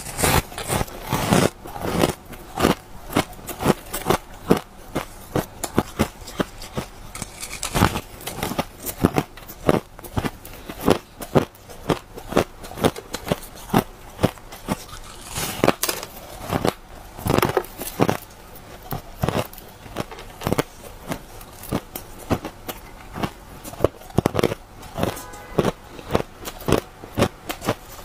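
A person biting and chewing chunks of refrozen shaved ice close to the microphone: a fast, irregular run of crisp crunches, several a second.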